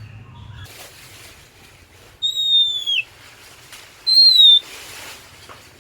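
Oriental magpie-robin (kacer) singing: two loud, clear whistled notes about two seconds apart, the first gliding slightly down and dropping at its end, the second shorter.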